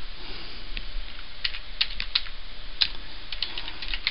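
Computer keyboard typing: separate, irregular key clicks that come closer together into a quicker run near the end.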